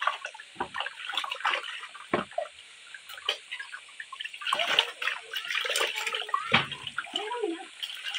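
Water poured from a steel mug over a baby monkey held above a plastic basin, splashing and dripping into the basin in uneven bursts.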